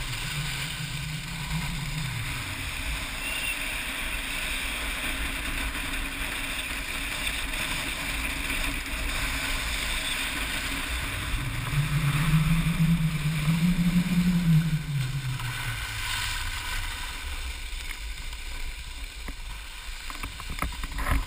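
Steady hiss and scrape of a snowboard or skis gliding over groomed snow, mixed with wind rushing over the GoPro's microphone. A low hum swells and fades twice, the second time about halfway through and louder.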